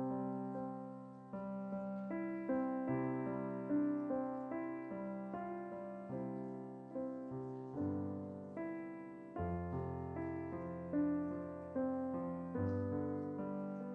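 Soft solo keyboard music in the style of an electric piano: slow, sustained chords, each one struck and left to fade, with a new chord every second or so.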